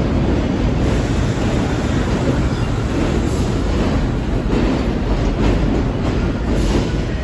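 Vintage R1-9 subway train rolling along an underground station platform: a steady low rumble of wheels and running gear, with a few wheel clicks over the rail joints.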